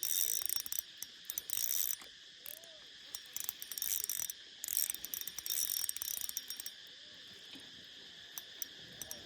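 Fishing reel being cranked in four short spurts, a hissing mechanical run with clicks each time, over steady chirring crickets.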